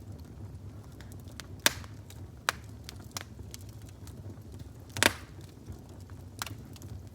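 Fire crackling, with a handful of sharp, irregular pops, the loudest about five seconds in, over a steady low rumble.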